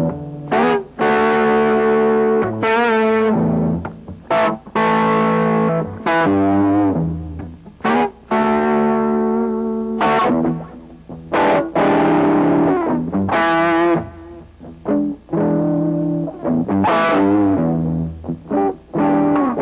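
Instrumental music on a distorted electric guitar: long held notes with a wavering vibrato, in phrases broken by short gaps.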